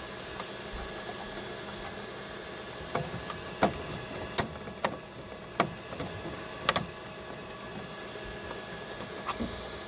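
Irregular sharp plastic clicks and knocks as 3D-printer parts are handled and pushed together by hand, a stubborn piece that will not click into place. They fall between about three and seven seconds in, with one more near the end, over a steady hum.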